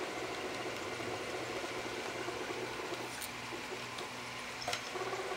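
Stepper motors of a small 3D printer (a half-scale Printrbot Simple) whirring steadily as it prints, with a pulsing low hum as the axes move. The whir shifts past the middle, and there are two light clicks, the second near the end.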